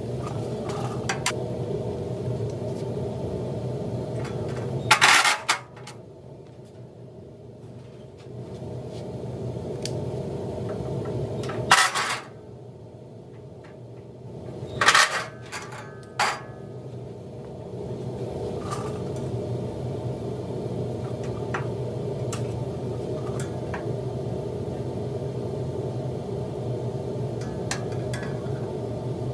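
A steel bracket strip being handled and fitted against a pickup's radiator support, with four sharp metal clanks: one about five seconds in, one near the middle, then two close together a few seconds later. A steady low hum runs underneath.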